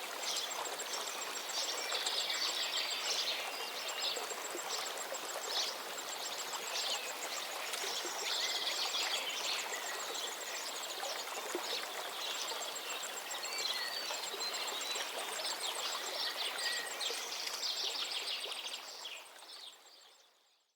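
Several birds singing and chirping over a steady hiss, with a fast, very high ticking trill running through much of it. The whole chorus fades out near the end.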